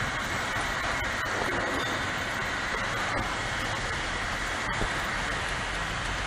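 Rotary external ampoule washing machine running with a steady, even mechanical noise.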